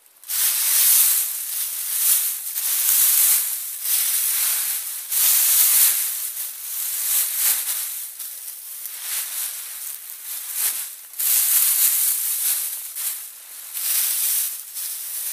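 Dry leaves rustling and crunching loudly as they are scooped up by the handful and pulled onto a coat, in repeated surges every second or two.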